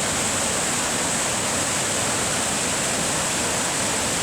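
Waterfall rushing, a steady, dense roar of falling water.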